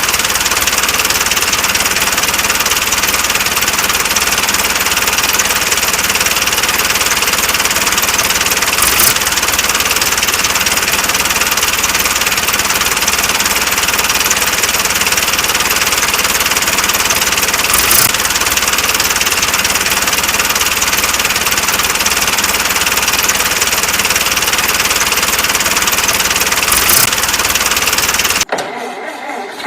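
Small engine of a mini tractor running steadily at a constant speed, cutting off abruptly near the end.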